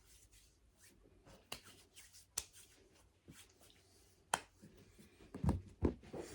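Quiet handling noises: hands rubbing and small scattered clicks, with two soft thumps near the end.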